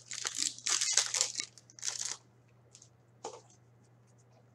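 A hockey card pack wrapper crinkling and tearing as it is ripped open by hand, in several quick bursts over about two seconds, followed by a single light tap.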